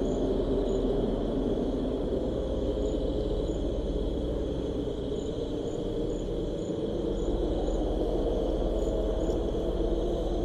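Steady low wind rumble with a continuous high cricket trill over it and short, scattered high chirps.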